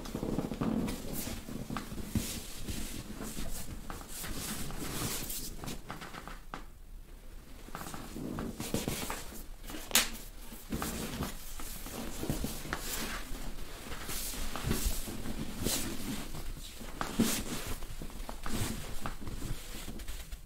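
Rustling and scraping of clothing and towel under a massage therapist's hands as the client's leg is bent and stretched and her hips are pressed over her clothes in a dry massage. The sound comes in an uneven stream of short scratches, with one sharp click about ten seconds in.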